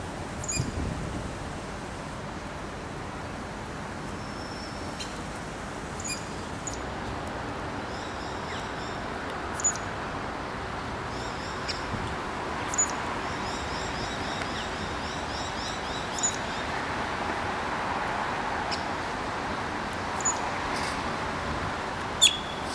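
Steady hiss of rain, with scattered sharp ticks and, through the middle stretch, faint rapid high trills of small birds.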